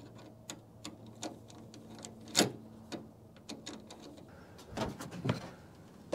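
Irregular light clicks and taps from a hood bug deflector and its mounting clips being handled and fitted against a pickup's hood, with a sharper click about two and a half seconds in.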